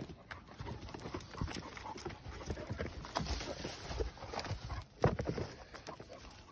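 Irregular footsteps, paw scuffs and rustling of big mastiff-type dogs and a person moving over fallen logs and through ferns on a forest trail, with a louder thump about five seconds in.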